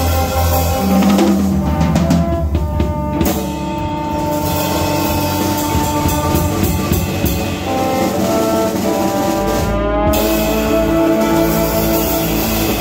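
Small live jazz combo playing: drum kit, electric bass, electric guitar and trombone, with long held notes over a busy drum beat.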